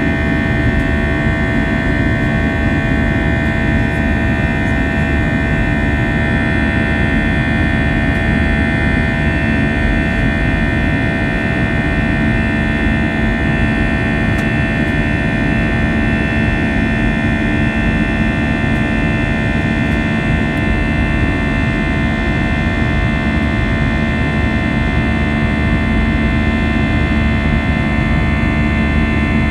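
Airbus A320-200 jet engines running steadily, heard inside the passenger cabin as a constant low rumble with several steady whining tones. There is no rise or fall in pitch or loudness.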